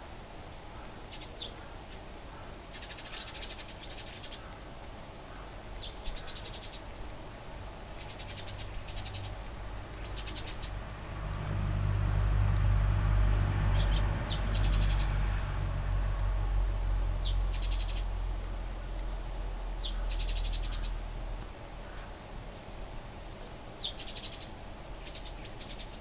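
Eurasian tree sparrows fighting, giving short bursts of rapid chattering calls every few seconds. A low rumble swells up midway, is the loudest sound for about ten seconds, then fades.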